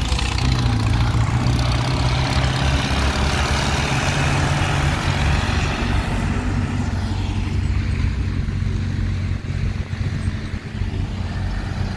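Diesel tractor engines running hard as tractors drive past one after another, a steady engine drone with a noisy upper layer that is strongest in the first half and eases off later.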